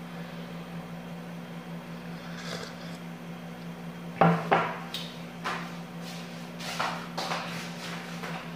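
A few short knocks and clatters of kitchen cupboards and crockery being handled, starting about four seconds in, the first the loudest, over a steady low hum.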